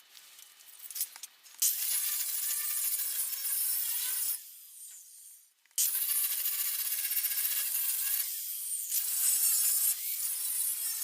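Angle grinder taking rust off the Mini's steel bodywork, grinding in three long runs with brief pauses between.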